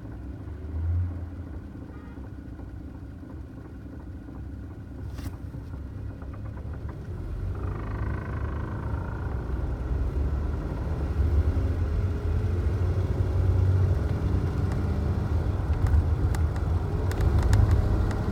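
2009 Toyota Tacoma running, a low rumble that grows steadily louder from about seven seconds in. There is a single click about five seconds in and a short wavering higher tone about eight seconds in.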